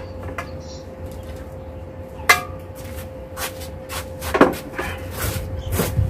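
Objects being handled, with sharp knocks and clatter: three louder knocks about two seconds apart and lighter clicks between. A steady hum and a low rumble run underneath.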